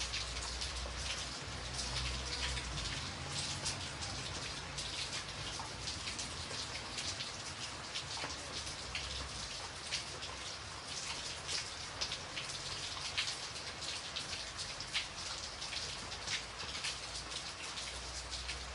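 Steady rain falling, with many separate drops striking close by over an even hiss. A low rumble underneath swells and fades.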